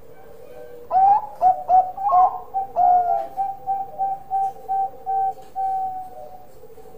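Zebra dove (perkutut) cooing: a burst of rising notes about a second in, then a run of short clipped coos, about three a second, until near the end.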